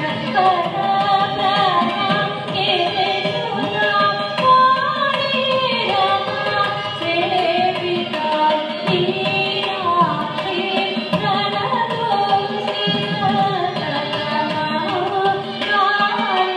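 Carnatic classical singing by a woman's voice with gliding ornaments, accompanied by violin and mridangam drum strokes.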